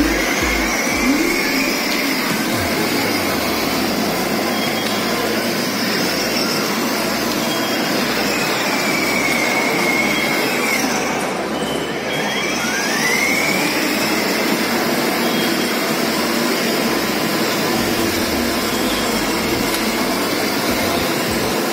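Electric ride-on toy jeep's motors and gearbox whirring steadily as it drives. A faint whine rises and falls in pitch a few times as its speed changes.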